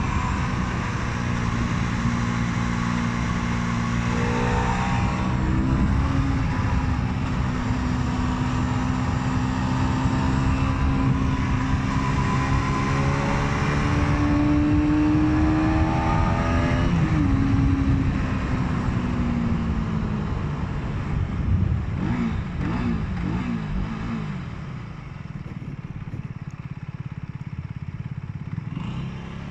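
Aprilia Tuono 125's single-cylinder four-stroke engine running at steady revs on the move, with wind rush. About halfway through the revs climb, then drop, and the engine runs quieter and lower near the end.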